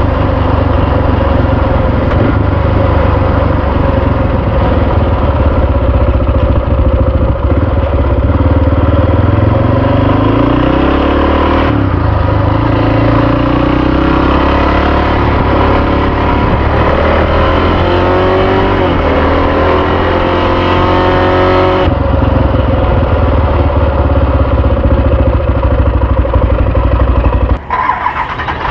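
Honda XR650R's single-cylinder four-stroke engine running under way on pavement, heard from the rider's seat, its pitch rising twice as the bike accelerates. The engine sound cuts off abruptly near the end.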